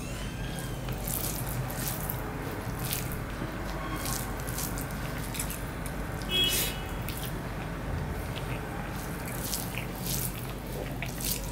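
Eating with the fingers: soft wet squishes of boiled rice being mixed with vegetable curry on a banana leaf, and mouth smacks while chewing. A louder wet smack comes about six and a half seconds in as a mouthful goes into the mouth.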